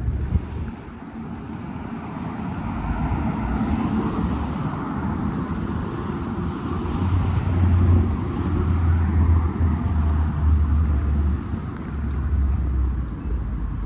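Street traffic: vehicles passing, one swelling and fading in the first half, followed by a heavy low rumble.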